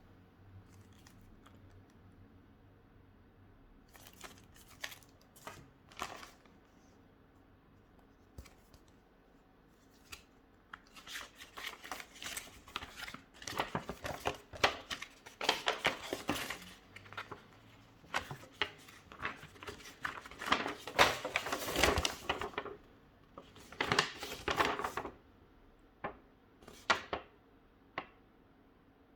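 Motherboard packaging being handled: scattered light clicks and taps, then about a quarter of a minute of rustling and crinkling in repeated bursts, ending with a few more clicks.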